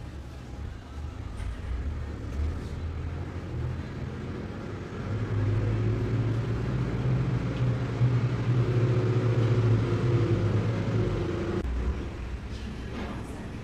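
Low rumble of a motor vehicle's engine, louder for several seconds in the middle and dropping back near the end.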